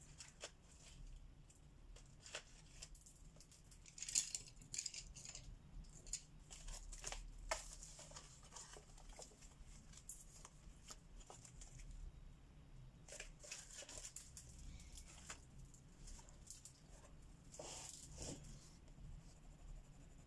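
Faint scratchy strokes of colouring on a paper page, coming in short runs with a few light taps between them.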